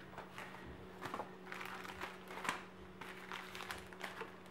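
Cards and sheets of paper being handled and shifted on a wooden table: scattered soft rustles and light taps, over a faint steady hum.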